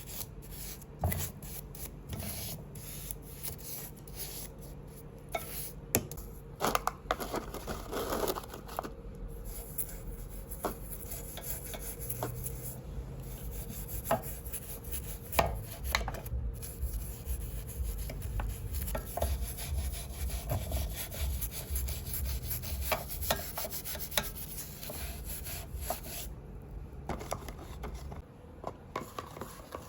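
Scrubbing and rubbing on an old brass samovar, with irregular clicks and scrapes, and a quick rhythmic rubbing through much of the second half.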